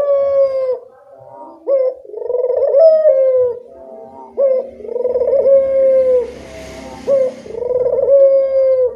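Barbary dove (burung puter) cooing repeatedly in a chatty run. Each coo is a quick upward scoop followed by a held, slightly falling note, and they come back to back about once a second.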